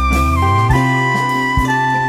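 Instrumental music: held melody notes over a low bass line, the notes changing every half second or so.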